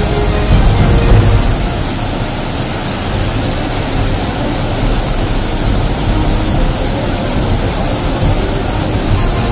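Flash floodwater rushing down a wadi channel, a loud, steady roar of water.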